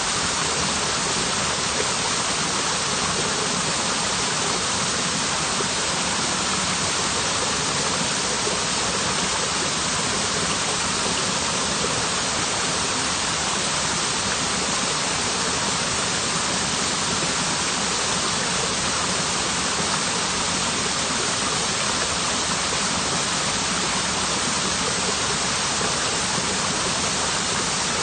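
Waterfall: falling water making a steady, unbroken rush that does not change.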